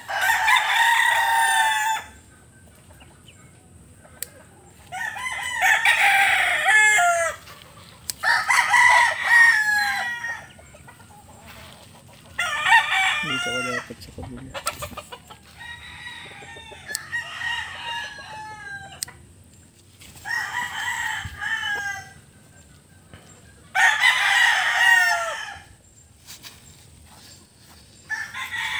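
Rooster crowing over and over: about eight crows, each a second or two long, coming a few seconds apart.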